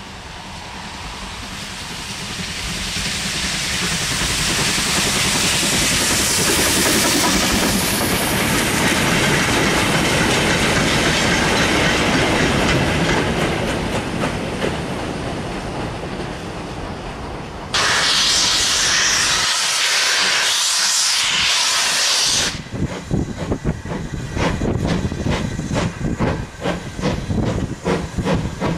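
A steam train passing, its running noise building up and then easing away. Then a loud, steady hiss of steam, followed by the sharp, rhythmic exhaust beats of a steam locomotive working a train towards the listener, about three beats a second.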